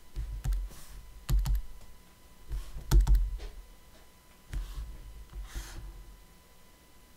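Irregular clicking from working a computer, with small clusters of sharp clicks and dull thumps on the desk. The loudest cluster comes about three seconds in.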